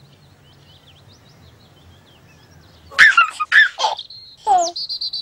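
Faint birdsong chirping over a low hum, then about three seconds in a baby giggles loudly several times. A high, warbling bird-like trill follows near the end.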